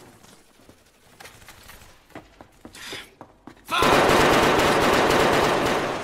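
Sudden burst of sustained automatic gunfire, loud and continuous, breaking out a little past halfway through after a quiet stretch with a few faint knocks.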